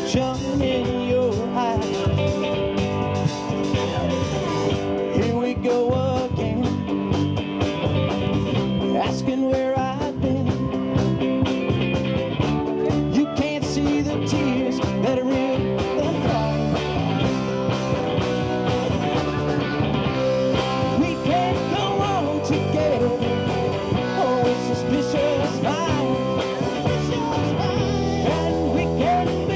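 Live rock band playing: a male singer singing into a microphone over electric guitar, bass and a drum kit.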